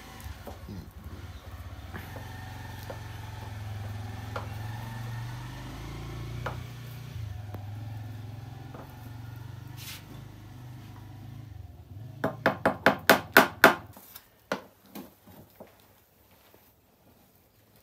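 A wooden paddle scrapes cooked grain out of a large metal pot, with small scrapes and clicks over a low steady hum. About twelve seconds in comes a quick run of about ten sharp knocks on the pot, a few more following, as the last grain is knocked out.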